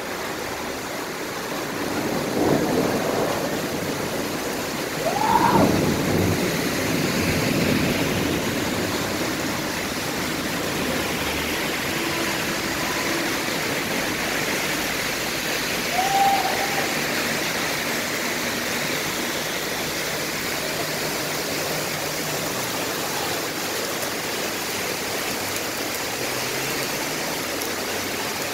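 Heavy rain pouring steadily onto a wet street, with a steady hiss of falling and running water. A vehicle passes a few seconds in, louder around five seconds, with a short squeal then and another brief squeak later.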